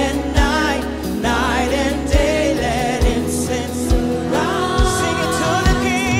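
Live contemporary worship music: a sung voice with vibrato over steady bass and a kick drum beating about once a second.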